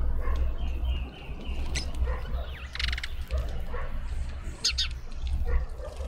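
Small garden birds chirping at a feeder, one giving a quick rattling call about three seconds in, while a dog barks a few times in the background over a low steady rumble.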